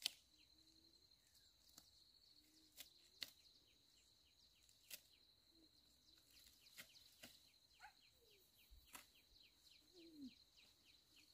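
Near silence: faint outdoor ambience with a steady high-pitched buzz, a short chirp repeating over and over, and a few faint sharp clicks.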